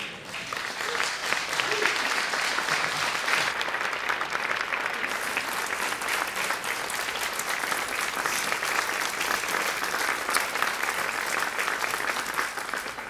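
Audience applauding: a steady round of clapping that starts at once and tails off near the end.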